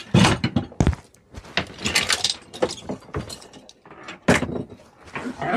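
Come-along hand winches being handled and set down: metal hooks and fittings clanking and rattling in an irregular run of sharp knocks.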